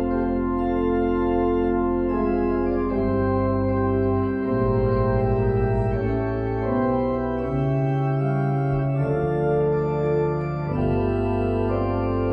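Organ music: sustained chords held over a bass line, the harmony changing every second or so.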